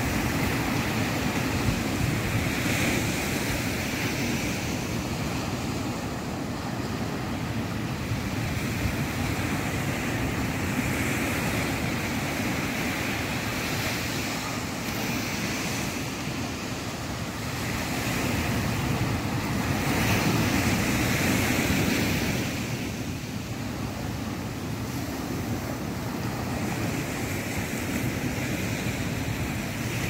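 Indian Ocean surf on a sand beach: small waves breaking and washing up the shore in a continuous wash that swells and eases every few seconds, loudest about two-thirds of the way through.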